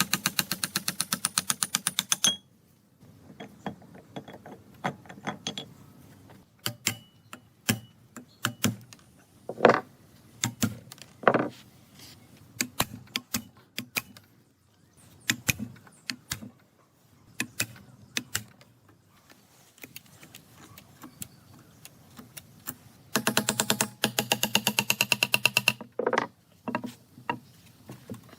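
Hand-tool work on metal parts: two bursts of rapid, even clicking, one at the start and one about 23 seconds in, with scattered clicks and knocks between.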